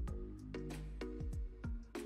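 Background music with a steady deep beat under held chords.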